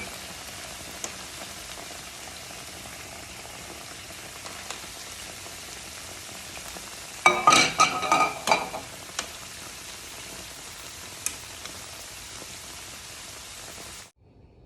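Battered chicken pieces frying in hot oil in a pan, a steady sizzle. About seven seconds in there is a short burst of clinking and clattering as pieces are lifted out with a utensil. The sizzle cuts off just before the end.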